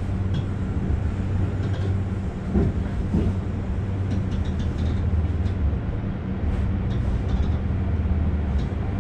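Diesel railcar running at low speed, heard from inside the cabin as a steady low engine drone while the train rolls into a station. A few faint short high clicks sound over it partway through.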